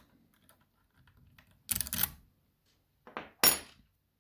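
Small metal clicks and rattles as a dimple lock and its key or tension tool are handled: a quick cluster of clicks about two seconds in, then a few more, the sharpest about three and a half seconds in.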